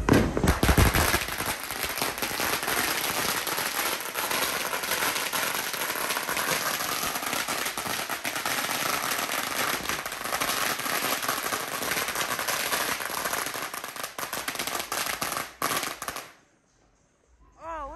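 A long string of firecrackers going off in a rapid, continuous crackle of small bangs, with a few louder bangs at the start. It cuts off suddenly about sixteen seconds in.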